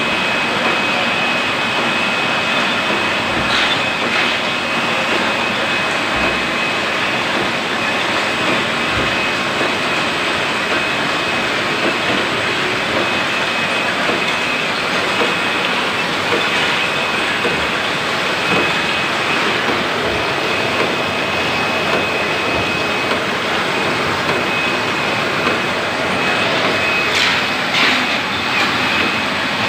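Bottled-water filling and capping line running: a steady, dense mechanical clatter with a constant high whine throughout, and a few brief clicks near the end.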